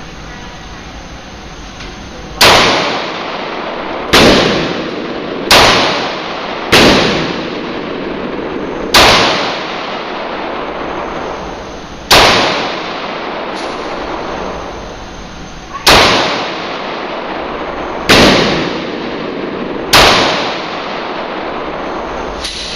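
Glock 27 pistol fitted with a 9mm conversion barrel firing nine single shots at an uneven pace, one to four seconds apart. Each shot is a sharp crack with a short echoing tail.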